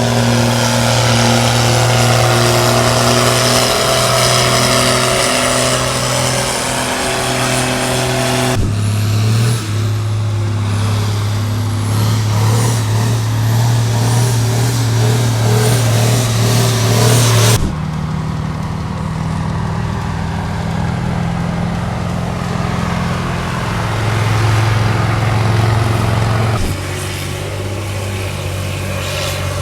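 Farm tractor engines running hard under load during tractor pulls. The engine note jumps suddenly three times, where one pull cuts to the next.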